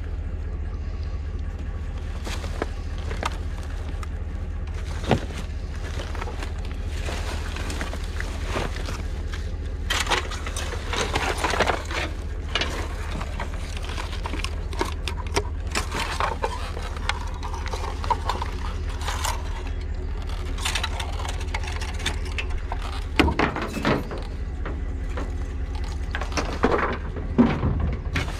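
Scattered clicks and clanks of hand-working on scrap metal, busiest about ten seconds in and again near the end, over a steady low hum.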